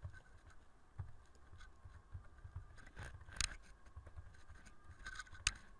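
Computer keyboard typing: irregular, scattered keystroke clicks, two of them noticeably louder, over a faint low hum.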